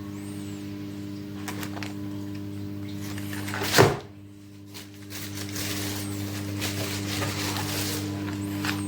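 Microwave oven running with a steady electrical hum, broken about four seconds in by one loud thunk.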